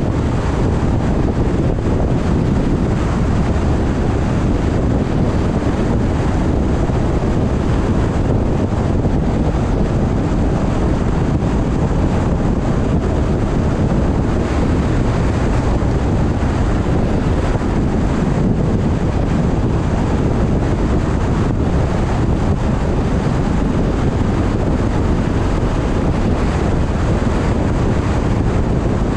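Steady road and wind noise of a car driving along the road, an even low rumble with wind on the microphone.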